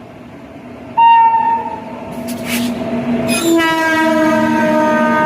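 WAP-7 electric locomotive's horn sounding in warning at people on the track: a sharp blast about a second in, then a long, steady blast from about three and a half seconds on, with a short hiss between the two.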